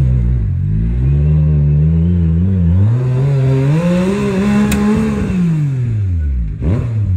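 Yamaha YXZ1000R side-by-side's three-cylinder engine revving under load as it climbs over rocks, its pitch rising through the middle and falling away near the end, with a single sharp click about two-thirds of the way in.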